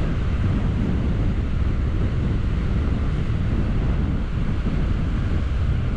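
Wind buffeting the microphone in a steady low rumble, over the wash of sea surf against the rocks.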